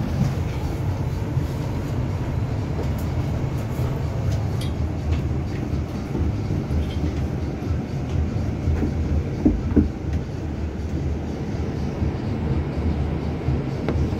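Cabin rumble of a double-decker bus heard from the upper deck: steady low engine and road noise as it drives, with a couple of knocks a little past halfway.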